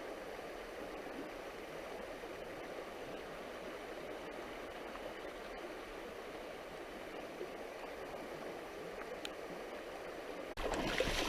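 Steady rush of flowing river water, with a sudden jump in loudness near the end.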